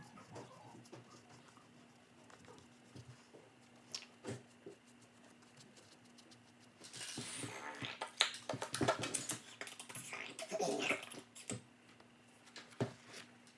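Faint taps and scratches of a paintbrush working on a football cleat. About seven seconds in, loud rustling, knocking and handling noise follows for several seconds as the cleat is picked up and moved about close to the microphone.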